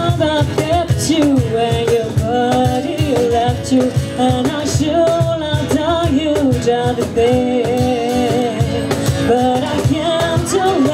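Live acoustic music: a woman sings a melody into a microphone through PA speakers, over strummed acoustic guitar and a steady beat struck on a cajon.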